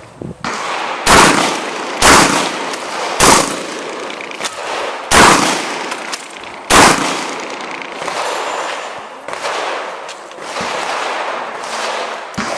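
A 12-gauge shotgun fired five times in quick succession, about a second apart with a longer gap before the last two, each shot a sharp report with a short echo.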